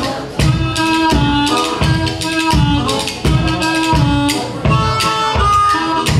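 Live blues instrumental: a harmonica cupped to a microphone plays held, overtone-rich notes that step between pitches, over a steady clacking rhythm from a pair of bones and low beats.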